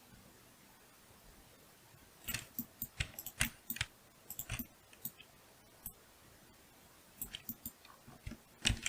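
Sharp clicks from a computer keyboard and mouse, tapped in two irregular bursts separated by a short pause.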